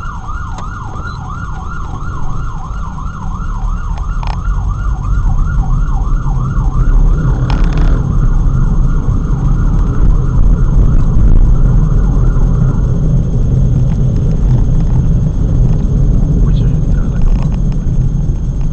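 Emergency vehicle siren in a fast yelp, about three rising sweeps a second, fading out about two-thirds of the way through. Under it is a low rumble of traffic engines that grows louder.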